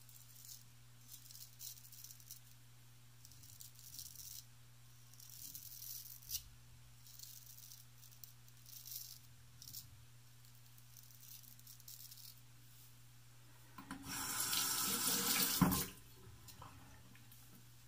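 A Wade & Butcher 7/8 straight razor scraping through lathered stubble in a series of short strokes. Near the end a tap runs for about two seconds, the loudest sound.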